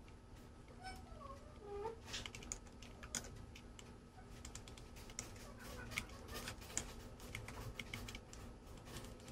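Computer keyboard keys clicking in quick, irregular runs, densest about five to seven seconds in.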